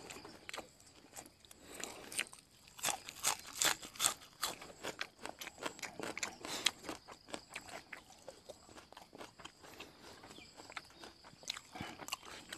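A person chewing a mouthful of sticky rice and minced fish larb close to the microphone: a run of small, irregular wet clicks and crunches, busiest in the first half.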